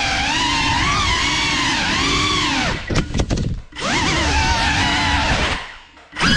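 Brushless motors and propellers of a GEPRC Cinelog 35 cinewhoop FPV drone whining, the pitch rising and falling with the throttle. The whine breaks up with a few clicks about three seconds in, and fades away again shortly before the end before returning.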